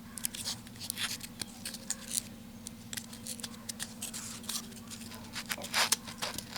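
Paper insulating separators being folded and pushed into the slots of a ceiling fan's stator: irregular crisp scraping, rustling and clicking of stiff paper against the steel core.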